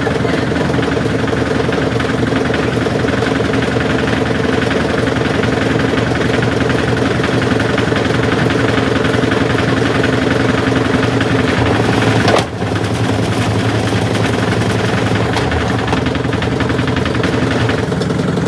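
Samsung washing machine running loaded with heavy bricks: a steady motor hum under dense, fast rattling from the drum. About twelve seconds in, a sharp click and a brief drop, after which the hum carries on at a lower pitch.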